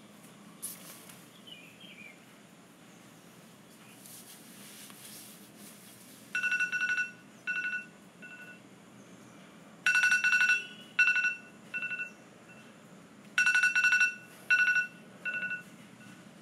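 iPhone alarm beeping in a repeating pattern: a longer beep followed by two or three shorter ones, the pattern coming three times, starting about six seconds in.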